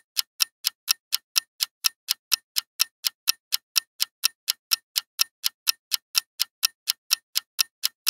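Clock-tick sound effect of a countdown timer: sharp, evenly spaced ticks, about four a second.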